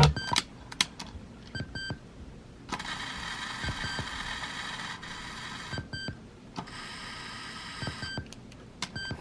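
Sony WM-EX526 cassette Walkman being operated after playback stops: sharp mechanical clicks and several short electronic beeps, with two stretches of steady whirring hiss a few seconds long in between.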